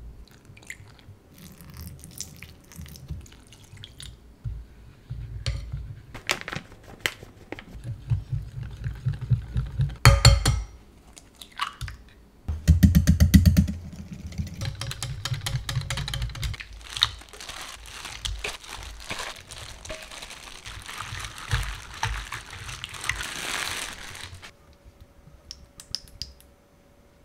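A metal whisk beating flour batter in a glass bowl, with clicks and taps of the whisk and spoon against the glass and a fast run of whisking strokes partway through.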